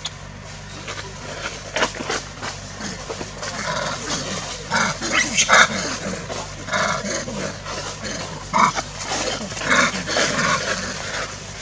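Macaques calling: a string of short barking calls, some in quick runs, loudest about five and a half seconds in.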